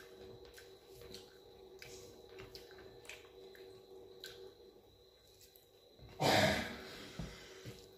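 Fingers mixing rice and dal on a steel plate, with faint small clicks and squishes. About six seconds in comes one short, loud breath, a sigh or snort.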